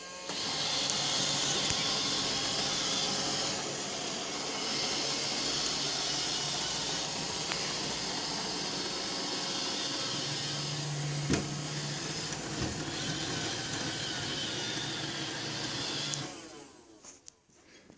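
iRobot Roomba 595 robot vacuum running, its suction motor and brushes going steadily, with one sharp knock about eleven seconds in. About sixteen seconds in it winds down and stops on its own: the random shutdown fault this unit keeps showing.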